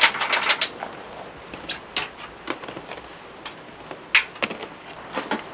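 Irregular clicks, knocks and scuffs of fishing gear being handled and set down on rocky ground, with a sharper knock about four seconds in.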